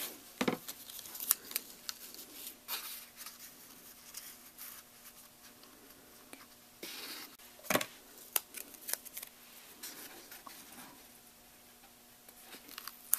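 Quiet paper handling with scattered sharp snips and clicks as scissors trim a stamped cardstock strip, with one louder tap a little before eight seconds in.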